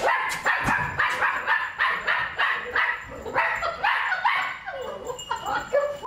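Small puppy barking in rapid high-pitched yips, about three a second.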